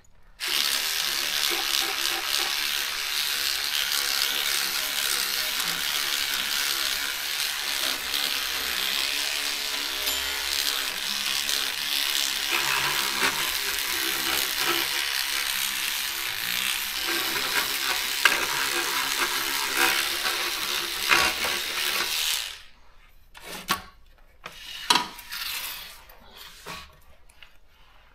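Electric cleaning brush scrubbing the textured plastic housing of a typewriter: a steady, loud buzzing scrub that stops about 22 seconds in, followed by a few short knocks and clicks.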